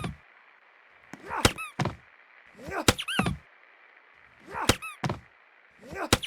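Sony Elite ceiling fan running with a rhythmic clunk and squeak that repeats about every one and a half seconds.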